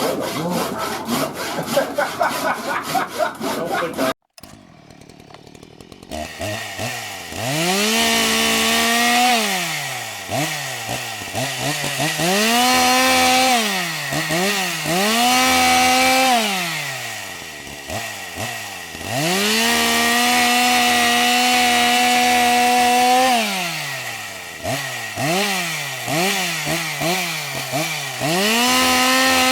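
Chainsaw revved up to full speed and let back down again and again, holding high speed for a few seconds each time, as when cutting into a maple burl. In the first few seconds a different, rapidly pulsing sound plays and then cuts off abruptly.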